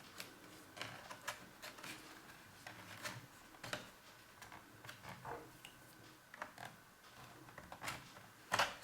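Faint, scattered clicks and taps of the laptop's SSD and its plastic and metal parts being handled and slid out of the drive bay, with a louder knock near the end.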